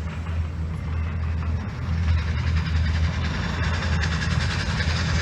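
Train sound effect played over the show's loudspeakers: a steady low rumble with a rhythmic chugging that grows louder about two seconds in.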